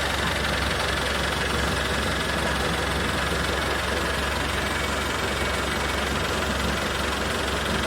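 Boat engine running steadily at an even speed, with a constant low rumble and a hiss of water and wind.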